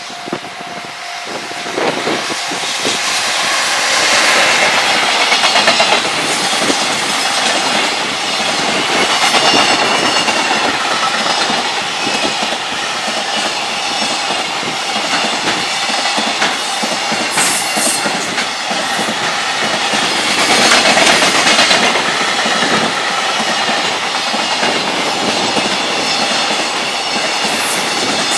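Freight train passing at high speed, its wagon wheels clattering rhythmically over the rail joints. The sound is loud throughout and swells twice, about five seconds in and again about twenty seconds in.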